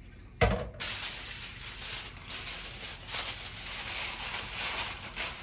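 A thump about half a second in, then aluminum foil crinkling and rustling as it is pressed and folded down over a foil roasting pan.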